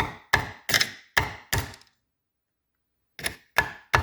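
Sharp metal-on-metal knocks on a Powerglide transmission's parts, each with a brief ringing note: five quick strikes about every 0.4 s, a pause of over a second, then three more near the end.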